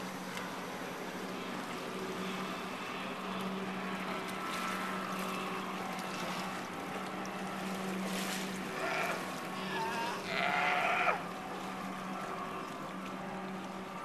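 California sea lion calling: a couple of short calls about nine seconds in, then a longer, louder call that cuts off about eleven seconds in. Under it, a steady low hum and the wash of water against the rocks.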